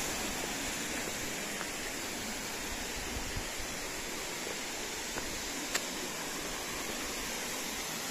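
Water of a small waterfall and mountain stream rushing steadily, with a few faint clicks.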